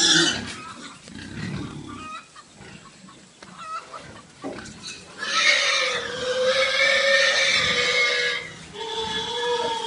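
Pigs squealing and grunting: a loud squeal at the start, a low grunt a second or so in, then a long, loud held squeal of about three seconds starting about five seconds in, and another steady held cry near the end.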